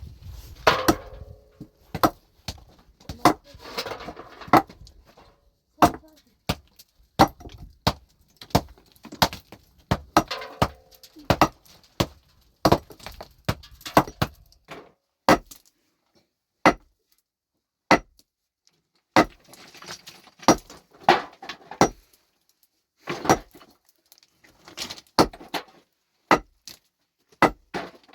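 Stone being worked by hand: a long run of sharp knocks and clinks of hard material on rock, roughly one or two a second, with scraping and rattling of loose stones between some of them. The strikes thin out for a few seconds past the middle, then pick up again.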